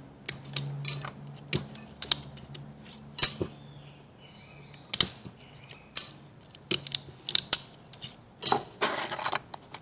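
Thin steel transformer core laminations being pried loose from their varnish one by one and handled, making sharp, irregular metallic clicks and clinks, with a longer scraping rasp near the end.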